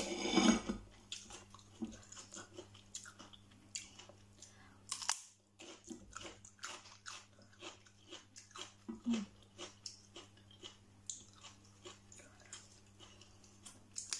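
A person chewing and crunching mouthfuls of stir-fried instant noodles with crisp raw vegetables (cucumber and salad leaves): a long run of small, irregular crunches and mouth clicks. A brief voice sound comes at the very start.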